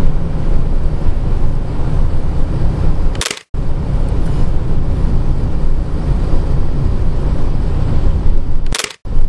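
Loud, steady road and wind rumble from a car driving along a highway, heard on the camera microphone inside the car. The rumble is broken twice, about three seconds in and near the end, by a short click and a brief dropout where the clips are spliced.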